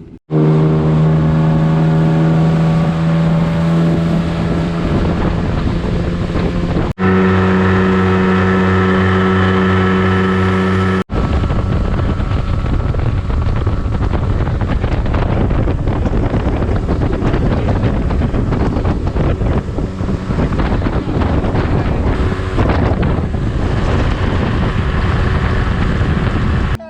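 Outboard motor on an aluminium fishing boat running at steady speed, heard in three abruptly spliced shots: two with a steady engine hum, then, from about eleven seconds in, a loud rush of wind on the microphone with the motor underneath.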